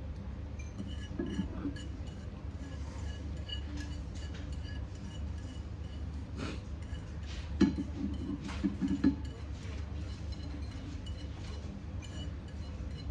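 Light clinks and knocks of chopsticks and a ceramic plate against a ceramic bowl, a few scattered strikes with the loudest cluster about two thirds of the way in, over a steady low hum.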